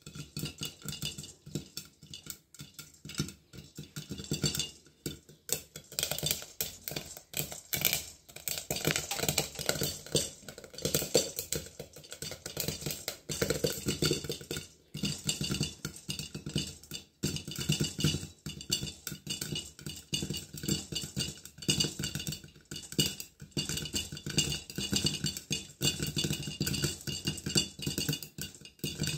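Sorghum (jowar) grains popping in a covered pan: a stream of irregular sharp pops and ticks against the glass lid and pan, sparse at first and turning dense after about six seconds.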